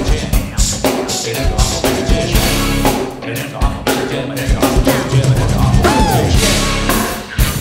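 Pop-rock music from a live band with a steady drum-kit beat and a prominent bass drum.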